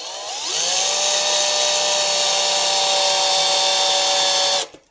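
Cordless 14.4 V drill-driver running a 35 mm bi-metal hole saw whose pilot bit is starting the centre hole in a stainless-steel sink, on its slow speed. The motor winds up over the first half-second, holds a steady whine with a high squeal, and cuts off suddenly near the end.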